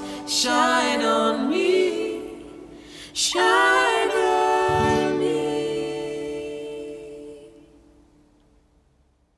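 Female and male voices singing the last phrases of a song in harmony with acoustic guitar. The final held chord fades away over several seconds in the church's reverberation and is gone about nine seconds in.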